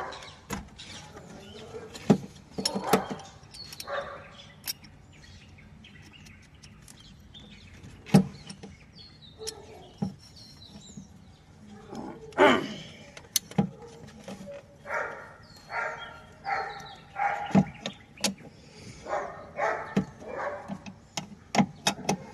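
Scattered sharp clicks and knocks, with birds chirping and a string of short pitched calls in the second half.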